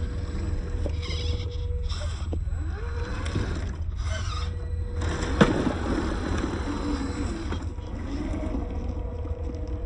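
Electric motor and gearbox of a 1/10-scale RC rock crawler whining as it crawls over a rock, with a short rising whine about a third of the way in and a sharp knock about halfway through, over a steady low rumble.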